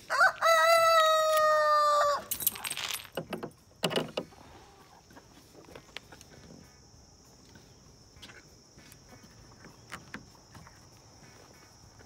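A rooster crows once, a single crow of about two seconds that holds its pitch and then cuts off. Two short harsh sounds follow, and a steady high insect drone runs underneath.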